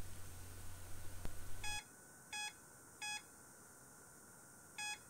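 PC speaker on a 386DX mainboard with AMI BIOS sounding POST beep codes: three short identical beeps about 0.7 s apart, a pause, then the pattern starting again near the end. Repeating three beeps is AMI's code for missing memory.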